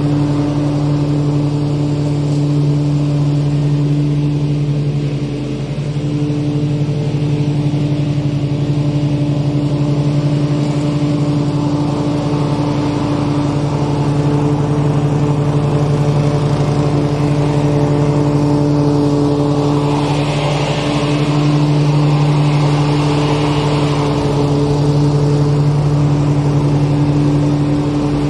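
Lawn mower engine running at a steady speed, with a brief dip about five seconds in.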